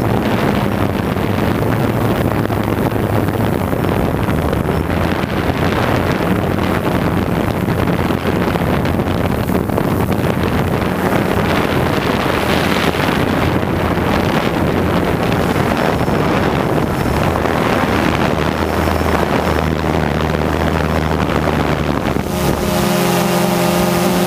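Wind rushing over the microphone of a camera mounted on a small remote-controlled aircraft, over the steady hum of its motors and propellers. Near the end the motor hum shifts to a higher whine.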